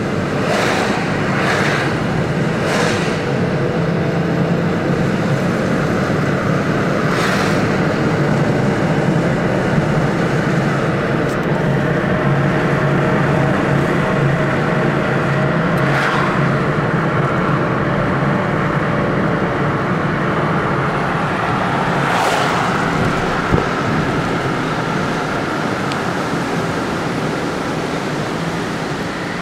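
Steady engine and road noise of a car on the move, with a handful of brief rushes of sound over the constant low hum.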